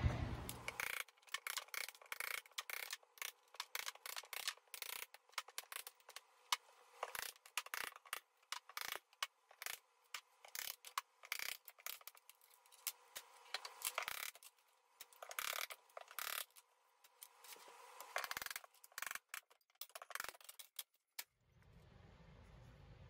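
Hand work on plumbing fittings with hand tools: a faint, rapid, irregular run of clicks, taps and scrapes. Near the end it gives way to a faint steady hiss.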